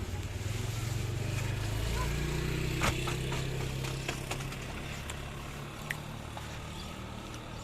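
A passing motor vehicle's engine hum that grows louder about two seconds in and then fades away, with a few sharp clicks in the middle.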